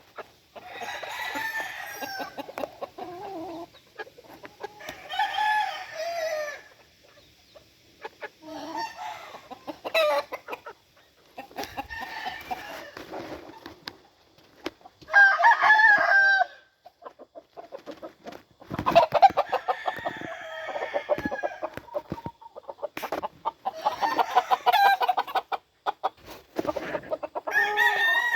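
Game roosters crowing one after another, about eight crows in turn, each lasting a second or two.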